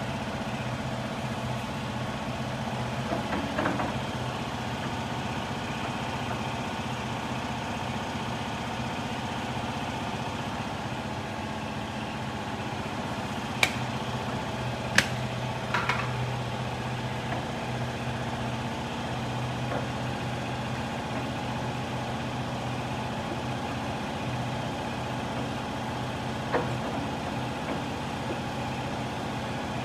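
Workshop machinery running steadily with a low engine-like hum, with three sharp clicks about halfway through and one more later.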